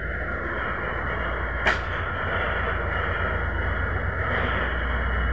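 Steady low hum and hiss of background room noise, with one sharp click about a second and a half in as a screwdriver works at the plastic ink-damper holder on an opened inkjet printer's print-head carriage.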